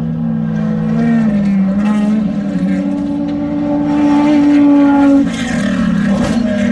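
Off-road desert race vehicle's engine running hard under throttle, its pitch climbing in steps and holding high, then dropping sharply about five seconds in.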